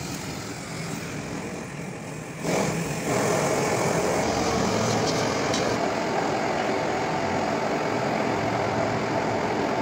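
A steady, machine-like whooshing noise with no clear rhythm, growing louder about two and a half seconds in and then holding steady.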